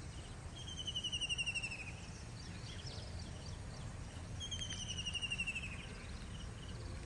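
A high, rapid trill of an animal's call, heard twice about four seconds apart, each lasting just over a second and falling slightly in pitch, over a low steady background hiss.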